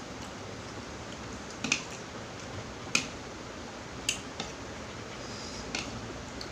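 A handful of short, sharp clicks and snaps at uneven intervals, the loudest about three seconds in, over a steady hiss.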